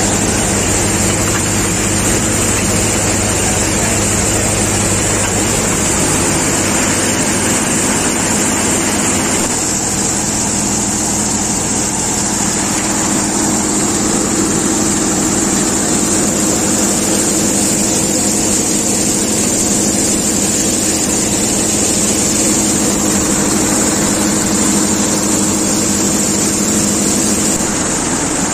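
Tractor-driven mustard thresher running steadily: the constant drone of the tractor engine together with the spinning threshing drum and blower. Its tone shifts slightly about ten seconds in.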